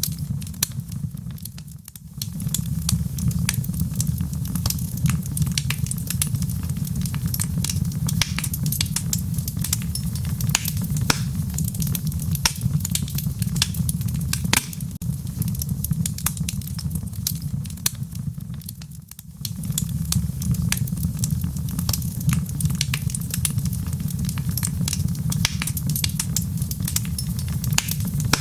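Fire burning in a fireplace, crackling and popping constantly over a steady low roar, which drops away briefly about two seconds in and again near nineteen seconds.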